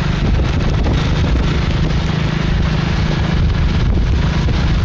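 Wind rushing over the microphone of a moving motorbike, with the engine's low steady hum underneath.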